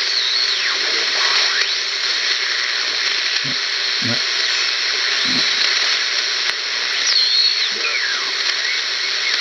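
BC-454B shortwave receiver being tuned across the 3–6 MHz band: a steady hiss of band noise and static, with whistling heterodyne tones that glide up and down as the dial sweeps past stations.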